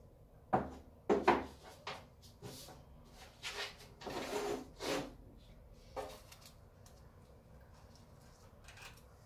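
Metal parts of a Mini rear subframe quadrant being handled as it comes off its bolt: two sharp knocks about half a second and a second in, then several scraping, rubbing sounds, and one more knock about six seconds in.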